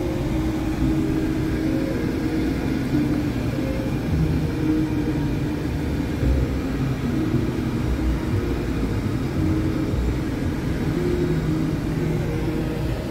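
Jeep Wrangler running, heard from inside the cab as a steady low rumble.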